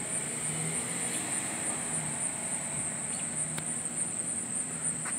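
Outdoor ambience: a steady, high-pitched insect drone, with a faint low hum underneath.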